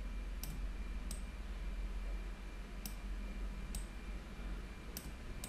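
Computer mouse clicking, about six separate sharp clicks spread unevenly over a few seconds, over a faint steady low hum.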